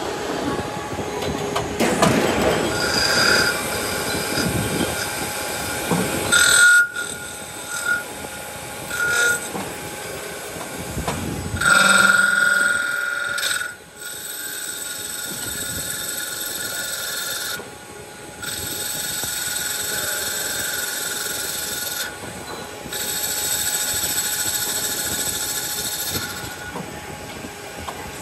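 A turret lathe turns a cast aluminium motorcycle wheel hub: the spindle runs steadily while the cutting tool squeals against the metal. Louder screeching bursts come and go, the longest about halfway through.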